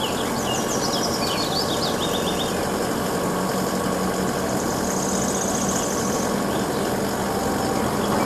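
Isuzu Elf aerial-platform truck running steadily at idle while its hydraulic boom lifts the work basket.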